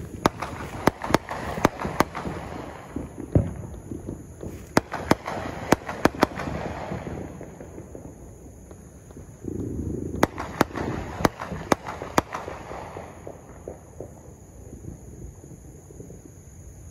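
Fireworks going off: rapid sharp bangs and crackling pops. They come in a dense volley for about the first six seconds, then a second volley from about ten seconds in.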